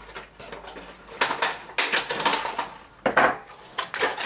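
Irregular clattering and rattling of hard objects being handled, with sharp knocks from about a second in: ice bottles and fan parts being moved around and repositioned.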